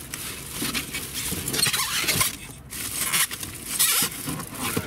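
Rustling and handling noises in irregular crackly bursts as an air compressor and its long cable are taken out of their packaging.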